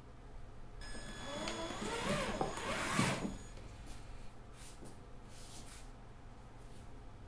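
A creak that wavers up and down in pitch for about two seconds, ending in a knock about three seconds in, like a door or drawer being moved; faint brief rustles follow.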